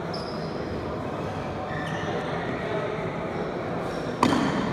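Indoor sports hall ambience: a murmur of voices echoing in the hall, a few short squeaks, and one sharp smack about four seconds in.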